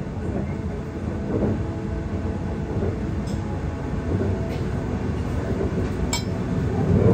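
Steady low running rumble of an electric express train, heard from inside the passenger car, with three light clinks of a metal fork against a ceramic bowl.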